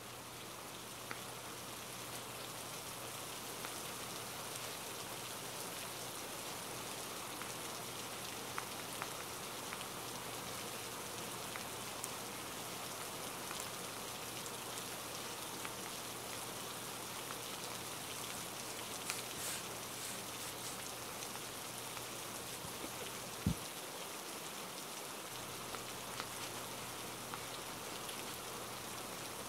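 Steady rain falling: an even hiss dotted with faint ticks of drops. Late on there is one short, low thump.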